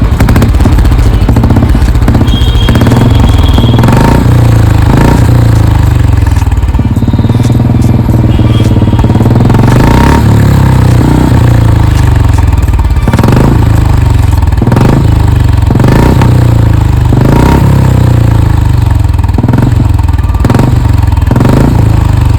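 Royal Enfield Bullet 350's single-cylinder engine running loudly through an aftermarket Indori silencer, its throttle blipped in short bursts over and over, each burst cracking sharply through the open exhaust.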